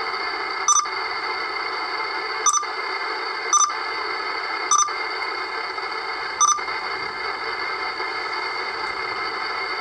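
Uniden Bearcat 980SSB CB radio hissing with receiver static on lower sideband, no station heard. Five short beeps in the first seven seconds, one for each click of the channel selector as it steps down from channel 40 to 35.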